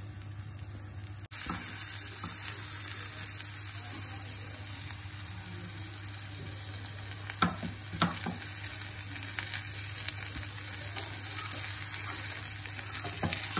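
Stuffed radish paratha frying in butter on a hot iron tawa, a steady sizzle that comes in suddenly about a second in. A few light knocks are heard in the middle and near the end.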